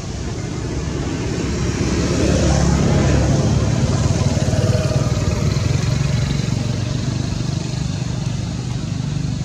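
Steady engine rumble of a motor vehicle, swelling over the first three seconds or so and then easing a little.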